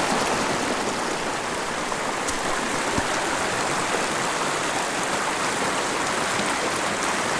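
Small mountain stream running fast over rocks and boulders in shallow riffles, a steady rushing and splashing of water.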